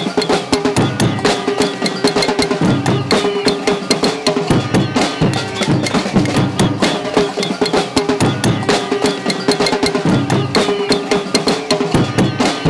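Protest noise from a crowd: pots, pans and drums being beaten in a dense, constant clatter, with a held tone that comes and goes over it.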